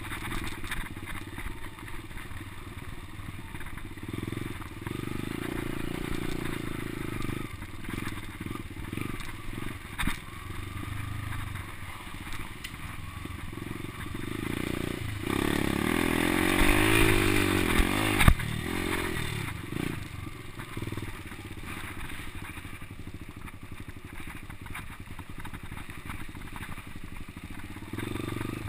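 Dirt bike engine running at low revs on a rough trail, with rattles and knocks from the bike over the ground. About halfway through the engine revs up for a few seconds, climbing then falling in pitch, and a single sharp thump, the loudest sound, comes as the revs drop.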